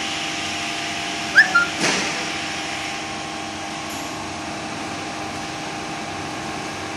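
Hot plate plastic welding and cutting machine running with a steady hum and hiss. About one and a half seconds in come two short squeaks and a sharp knock, after which the hiss eases a little.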